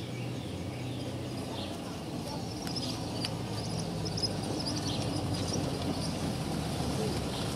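VW Beetle with a 2.0-litre Transporter engine running as it drives closer, a steady low engine hum that slowly grows louder.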